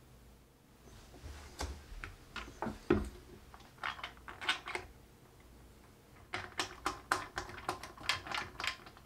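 Plastic nut being hand-threaded onto a toilet seat bolt: irregular runs of small plastic clicks and scrapes, in two spells with a short pause between.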